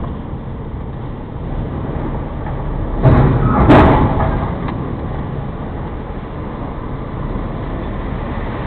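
Lorry engine running, heard from inside the cab, with a loud burst of noise about three seconds in that lasts around a second; the lorry then pulls away.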